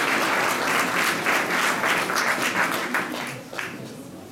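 Audience applauding, a dense patter of many hands clapping that thins out and dies away in the last second or so.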